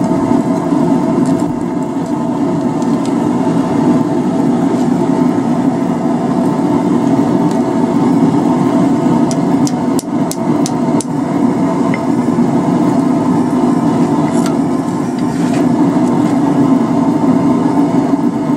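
Steady mechanical drone of a blacksmith's forge running. A few light metallic clicks come about ten seconds in and again about fifteen seconds in.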